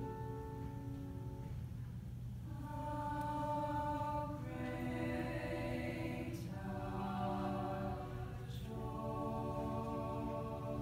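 Women's choir singing slowly, in long held chords that change together every second or two.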